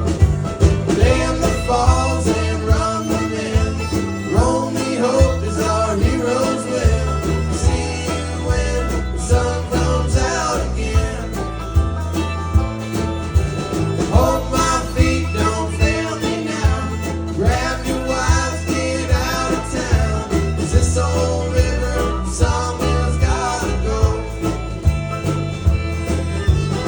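Country-bluegrass music with guitar, banjo and singing over a steady bass and beat.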